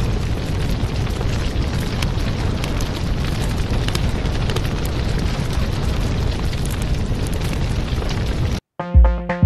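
Stock fire-and-explosion sound effect: a steady low rushing rumble with scattered crackles. It cuts off suddenly near the end, and electronic music with a heavy thumping beat starts.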